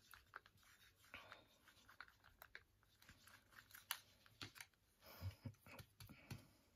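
Faint scattered clicks, taps and scrapes of a wooden stirring stick against a small plastic pot of runny glue mix, with a sharper tick about four seconds in and a few soft knocks near the end.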